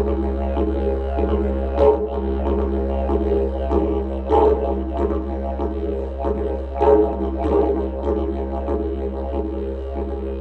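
Didgeridoo played with a continuous low drone, its overtones swelling in a steady rhythmic pattern of pulses, with stronger accents about every two and a half seconds.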